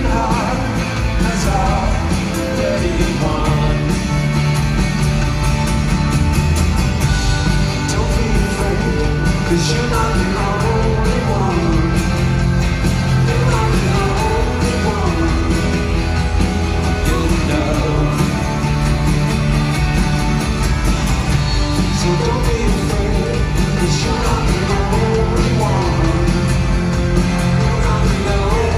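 Live rock band playing a song, with electric guitars, drums and a singing voice, heard from the stands of an arena.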